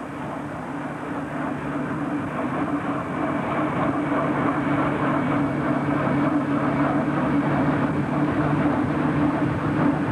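Motorcycle engine running steadily with rushing wind and road noise, from a camera motorcycle pacing close beside a time-trial cyclist. It grows gradually louder.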